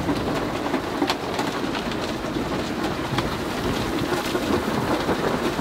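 Heavy rain falling on the van's roof and windows, heard from inside: a dense, steady patter of separate drop hits.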